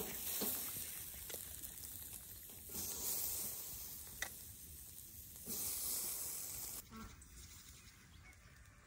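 Whole fish sizzling as they are laid on a wire grill basket over hot charcoal embers, with a few light clicks from the metal grate. The hiss swells in a few surges, then drops away about seven seconds in.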